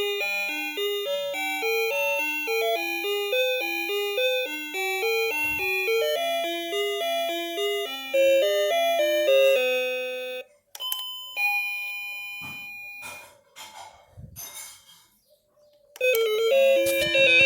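Luckarm doorbell playing its electronic chime tunes: a long melody of quick notes for about ten seconds, then a short held chime tone, and a new melody starting near the end. A few faint clicks and knocks sound in the gap between tunes.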